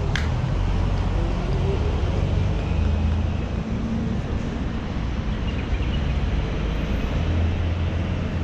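Steady low rumble of street traffic and vehicle engines, with a single sharp click just after the start.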